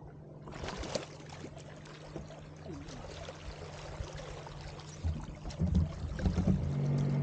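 Water splashing and sloshing against the boat's side as a large barramundi is held in the water and revived. A steady low hum runs underneath and grows louder near the end, with a few low knocks about five to six seconds in.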